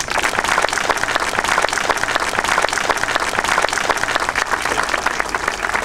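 Crowd applauding: dense, steady clapping from a large seated audience that breaks out all at once.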